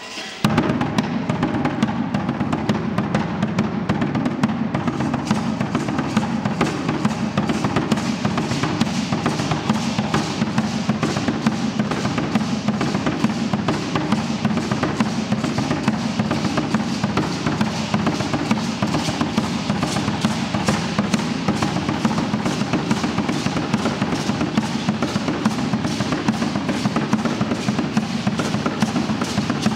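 Drumming for an Aztec dance: a fast, steady percussion beat that starts suddenly about half a second in and keeps going without a break.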